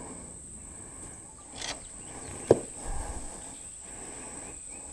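Outdoor creekside ambience with a steady high-pitched insect drone, broken by a sharp click about halfway through and some brief handling rustles around it.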